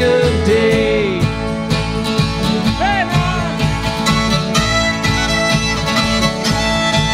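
Acoustic string band playing an instrumental passage: a fiddle bows a melody with sliding notes over strummed guitars and an upright bass.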